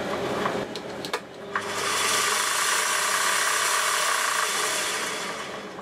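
Vevor 7x14 mini metal lathe spindle and motor running up to speed with a steady whir after a couple of small clicks, then switched off and winding down near the end.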